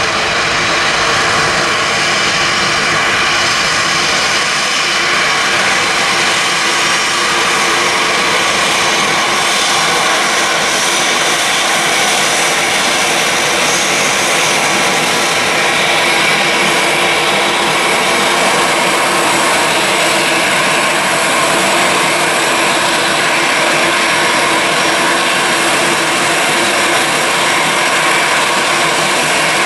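Four turbofan engines of a Boeing 747-400 at takeoff thrust, a steady loud jet noise through the takeoff roll and lift-off.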